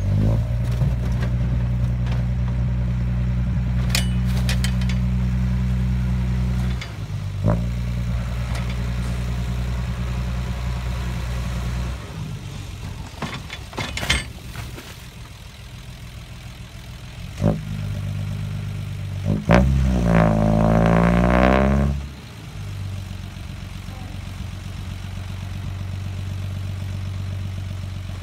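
Diesel engine of a six-wheel dump truck held at high revs to drive the hydraulic hoist as the loaded bed tips up and the soil slides out, with a few sharp knocks. The revs surge for a couple of seconds near the end, then the engine settles to idle.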